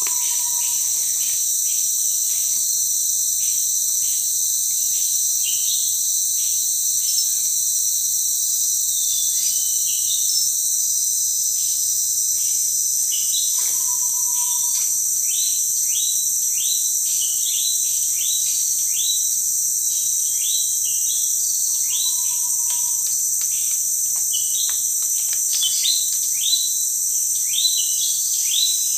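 Rainforest insects droning steadily at a high pitch, with many quick, sharp bird calls that come thicker near the end, and a short level whistled note heard three times.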